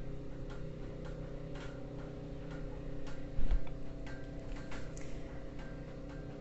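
Light, irregular clicks over a steady low hum, with one louder dull thump about three and a half seconds in.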